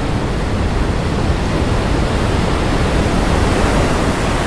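Ocean surf making a steady, even rushing noise.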